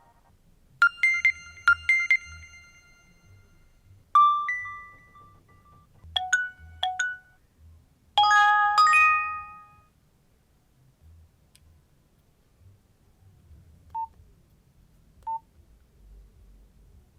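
Nokia C2-02 mobile phone playing a series of short tones through its loudspeaker: four brief jingles of a few clear notes each, separated by pauses. Two faint short beeps follow near the end.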